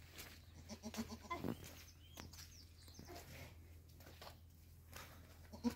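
Faint bleating of a goat: a short, wavering bleat about a second in and another starting near the end, with small high chirps in between.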